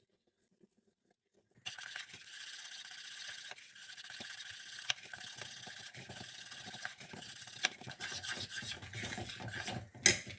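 Utensil stirring and scraping around a bowl of melting chocolate over a bain-marie, a steady scraping with scattered clicks, starting after a moment of near silence and ending in a sharp knock.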